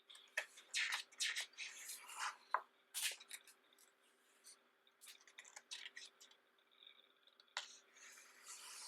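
Glossy pages of a thick photobook being turned and handled: papery swishes and rustles with small clicks and taps, busiest in the first few seconds and again near the end.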